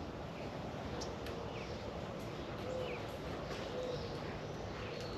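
Faint outdoor ambience: birds calling and chirping over a steady background hiss.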